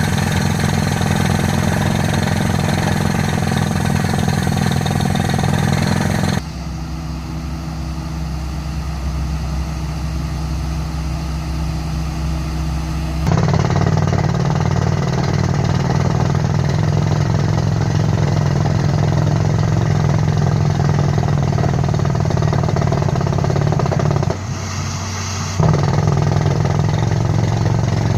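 Rock drilling machine running steadily with an engine-like hum. The sound changes abruptly: quieter from about six seconds in, louder again from about thirteen seconds in, with a short dip near the end.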